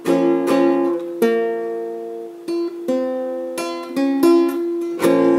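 Guitar playing an instrumental passage of an Argentine gato folk song: plucked notes and chords struck every half second to a second, each left to ring on.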